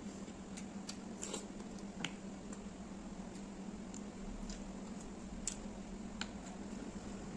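Close-up eating sounds: fingers squishing and mixing rice and chicken on a plate and mouth noises from chewing, with a few short sharp clicks. A steady low hum sits underneath.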